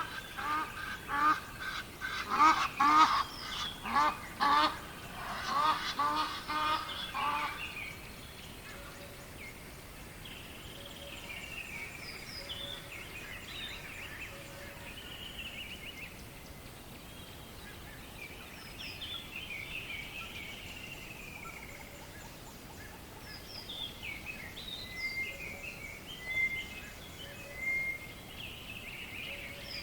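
Birds calling: a quick series of loud, repeated calls for about the first eight seconds, then softer chirps and short songs from smaller birds over a steady background hiss.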